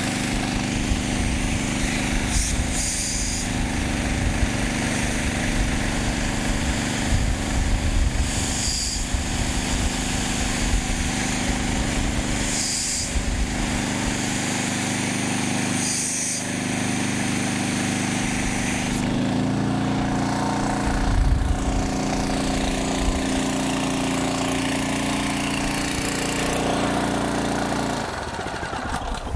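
Small petrol engine of a portable fire pump running steadily under load, pumping water through a yellow inch-and-a-half fire hose. Its note changes about two-thirds of the way through and it gets a little quieter near the end.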